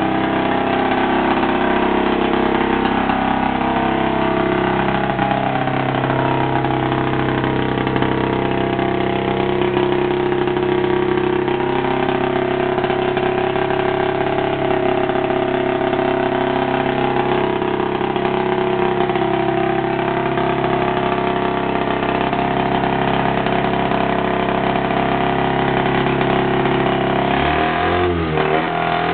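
500cc two-stroke Ski-Doo snowmobile engine in a homebuilt off-road buggy, idling steadily, then revved up and down a few times near the end.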